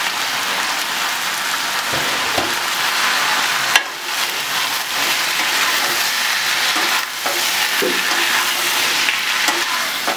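Raw chicken pieces sizzling steadily in hot oil in a non-stick pan as they are stirred and turned with a steel spatula, with one sharp knock about four seconds in.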